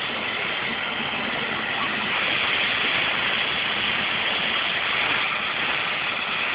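Bell 412-type turbine helicopter running on the ground with its main rotor turning, ahead of take-off: a steady, dense engine-and-rotor noise that swells slightly a couple of seconds in.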